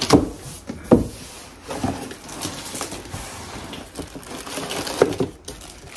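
Cardboard box and packing material of a cookware set being pulled open and handled: irregular crinkling and rustling with a few sharp knocks, the loudest near the start, about a second in and about five seconds in.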